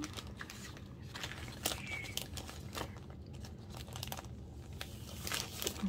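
Clear plastic sleeve crinkling and rustling as a large, thin paper poster is handled and slid into it, with scattered sharp crackles.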